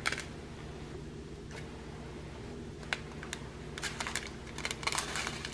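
Small plastic zip bags of round diamond-painting drills being handled: scattered light crinkles and clicks, coming more often in the last second or two, over a low steady hum.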